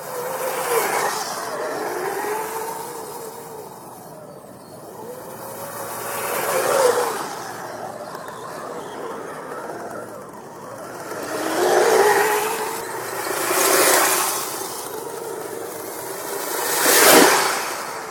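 Brushless electric motor of a radio-controlled Kyosho Blizzard SR whining as it is driven, its pitch rising and falling with the throttle. Several louder rushing swells come and go, the loudest near the end.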